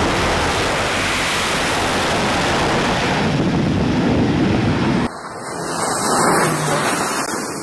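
Steady roar of a jet's engines running at high power on a carrier flight deck. It cuts off abruptly about five seconds in, giving way to quieter aircraft engine noise that swells and fades as a twin-turboprop carrier transport comes in to land.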